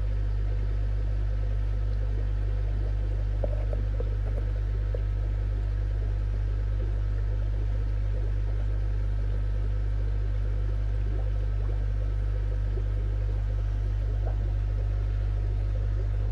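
Steady low hum of fishroom equipment, typical of an aquarium air pump running. A few faint light knocks come about three and a half to four seconds in.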